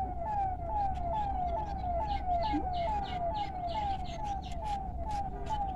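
A steadily repeated falling, whistle-like call, about three notes a second, each note sliding down in pitch, which is typical of a forest insect or bird.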